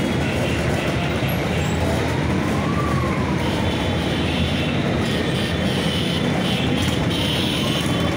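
A line of vintage Vespa scooters and classic small motorcycles riding past at low speed, many engines running together in a steady din. Single engines rev up and back down, once about three seconds in and again near the end.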